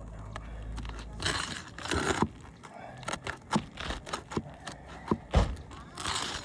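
A hand tool scraping and prying at asphalt shingles and a roofing nail whose head is bent down, so it won't come out. There are scraping rasps, then a series of sharp clicks and taps, with the loudest knock about five seconds in.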